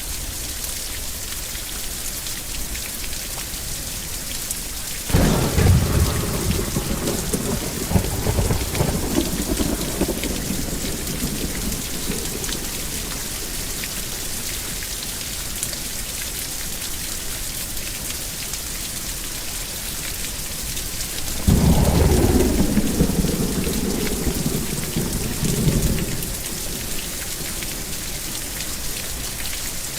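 Steady heavy rain falling, with two claps of thunder that rumble on for several seconds. One comes about five seconds in and the other a little after twenty seconds.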